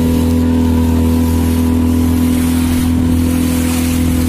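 A fishing boat's engine running steadily at constant speed as the boat moves, with water rushing along the hull.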